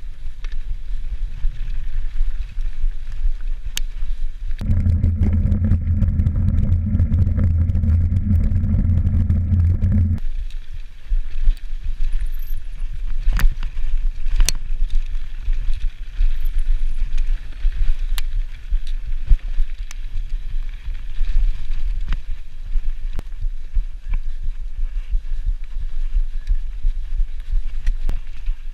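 Mountain bike rolling fast down a dirt singletrack: wind buffets the camera microphone in a steady low rumble, with tyre noise and sharp knocks and rattles as the bike hits bumps and roots. For several seconds near the start a louder, steady low hum sits over it.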